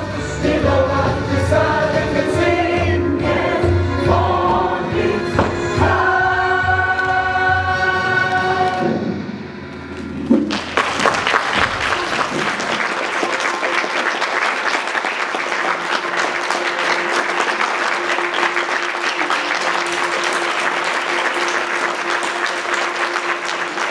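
Cast singing together with a band accompaniment, the song ending about ten seconds in, followed by sustained audience applause.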